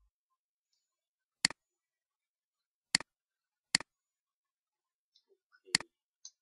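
Four sharp computer mouse clicks, each a quick press and release: one about a second and a half in, one at three seconds, one just before four seconds and one near the end, with a few faint ticks just before the last.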